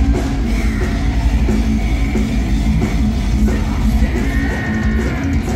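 A live heavy metal band playing loud: distorted electric guitar over drums and bass, with held guitar notes ringing out in the last couple of seconds.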